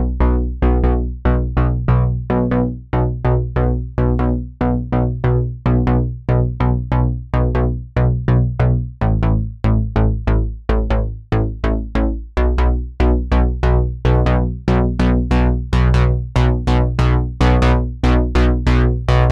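Background music: an electronic synthesizer track with a quick, even beat of plucked-sounding notes over a steady bass.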